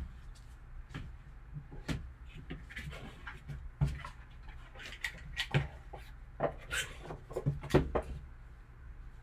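Gloved hands handling a cardboard collector box and its foam insert: scattered soft knocks, taps and rustles, the loudest ones near the end as the box lid is set back on.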